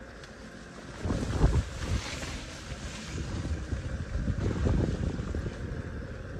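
Wind buffeting the microphone in irregular gusts: low rumbling blasts about a second in and again about four and a half seconds in.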